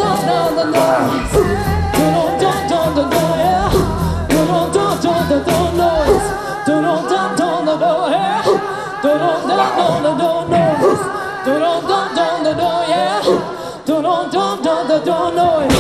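Live band performance of a song with singing in which no words are recognised, over drums and bass. The drums and bass drop away about six seconds in, leaving mostly voices, and the music stops abruptly at the end.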